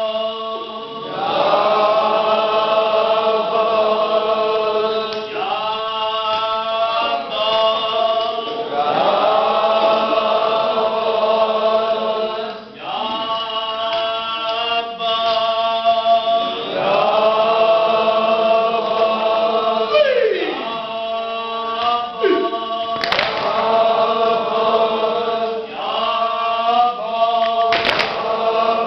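A group of men chanting a Shia nauha, a mourning lament, together in unison, in long drawn-out phrases that rise and fall. Two brief sharp knocks come in the second half.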